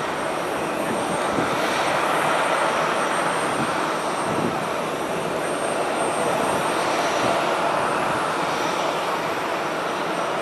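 ATR 42-600 twin-turboprop airliner climbing away after takeoff, its engines and propellers a steady drone with a faint high whine.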